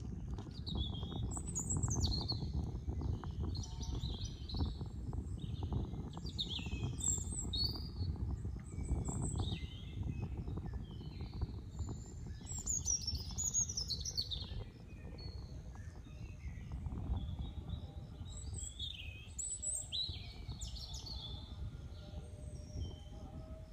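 Many small birds chirping and calling at sunrise, a dawn chorus of short chirps and quick sweeping whistles, over a steady low rumble.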